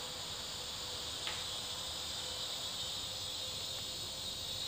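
Steady, high-pitched chorus of insects chirring in the forest.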